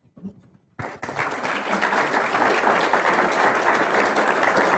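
Audience applauding: dense clapping that starts about a second in and keeps going steadily.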